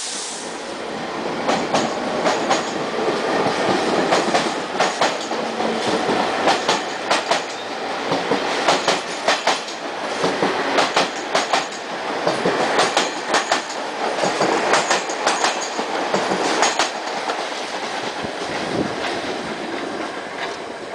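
Subway train cars running past along the station platform, a steady rumble with the wheels clacking over rail joints in quick pairs and groups of clicks.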